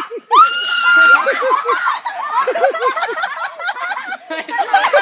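A girl's long, high-pitched scream of fright as a rooster chases her, followed by a rapid run of short cries and laughter.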